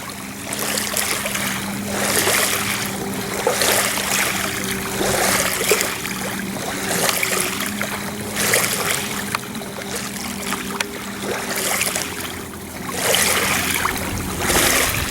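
Small waves washing in and draining back on a rocky beach, swelling and ebbing every second or two, over a steady low hum.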